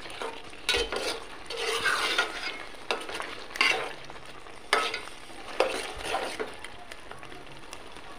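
A metal spoon stirring and scraping a thick taro and fish-head ghonto in a pot over a steady sizzle as it fries down. The scrapes come as sharp strokes at irregular intervals, about one every second.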